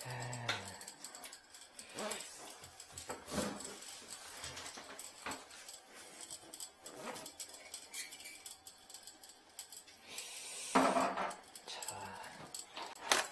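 Scattered clicks, knocks and scraping from hands and a tool working at a toilet-paper holder wedged inside a blocked toilet, with a louder burst of noise about eleven seconds in.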